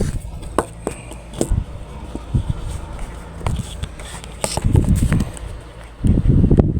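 Handling noise from a phone being moved and set in place: knocks, bumps and rubbing rumbles on the microphone, loudest near the end, over a steady low hum.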